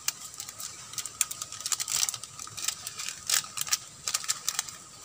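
Seasoning granules shaken from a small plastic sachet onto a plate of spices, the sachet crinkling as the grains fall in quick, irregular light ticks.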